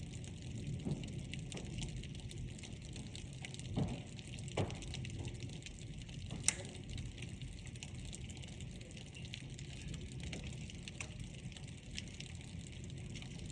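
Hailstorm: steady pouring rain with scattered sharp ticks of hailstones striking. Two duller thumps come around four seconds in, and one louder crack of a hailstone hitting about six and a half seconds in.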